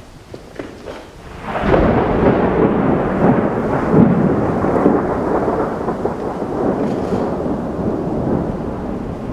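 A few faint clicks, then a sudden, loud, deep rolling rumble about a second and a half in that carries on and slowly fades.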